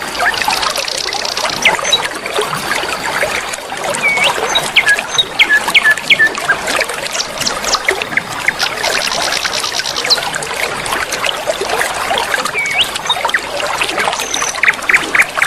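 River water flowing steadily, with birds chirping and whistling over it: short whistled notes and two fast high trills, one near the start and one about two-thirds through.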